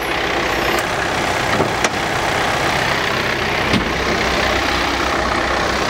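John Deere 4066R compact tractor's diesel engine idling steadily, with a few sharp clicks over it.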